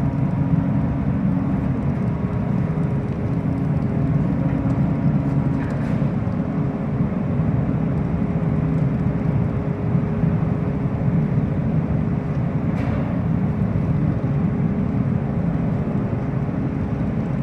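Car ferry's engines running: a steady low drone with a faint held tone above it.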